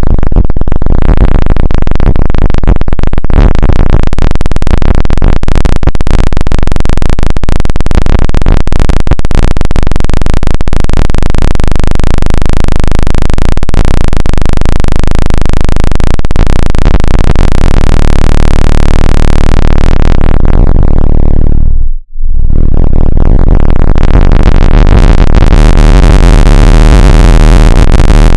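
Loud, harsh synthesized electronic sound that fills the whole range from deep bass to hiss, flickering with brief breaks in the first half. About three-quarters of the way through, the top of the sound sweeps down to a momentary dropout, then opens back up again.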